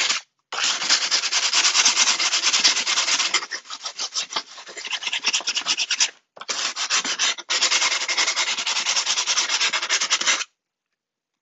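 Sandpaper rubbed by hand along the freshly cut edge of a mirror glass tile in quick back-and-forth strokes, smoothing off a sharp point left by the cut. The rasping pauses briefly a few times, goes lighter in the middle, and stops about ten seconds in.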